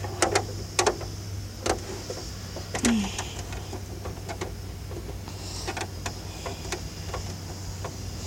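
Scattered light clicks and knocks, irregularly spaced, over a steady low hum.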